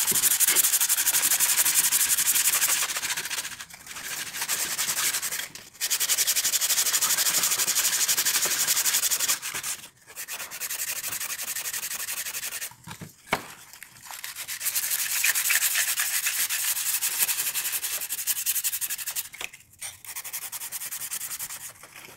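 Hand-sanding a wooden lantern piece caked with old candle wax and soot: a scratchy rasp of sandpaper in long runs of quick back-and-forth strokes, broken by brief pauses, with one sharp tap a little past halfway. The wax is clogging the sandpaper rather than sanding away.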